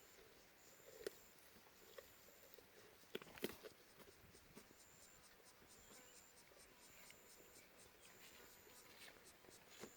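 Near silence, with faint scattered clicks and ticks and a louder cluster of ticks about three seconds in.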